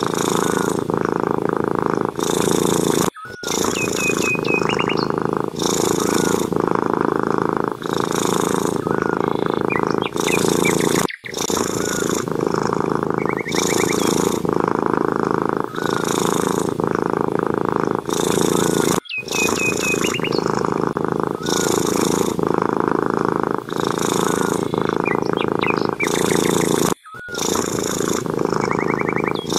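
Domestic cat purring steadily, with short high chirps over it. The sound breaks off for an instant about every eight seconds and the same stretch repeats, as in a looped recording.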